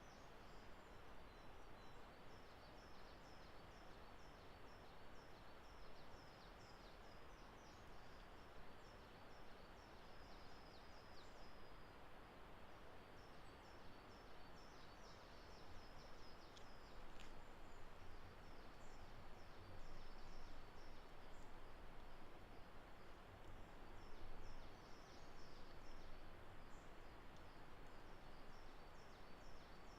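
Faint woodland birdsong: many short, high chirps and trills from small birds go on throughout, over a steady low hiss.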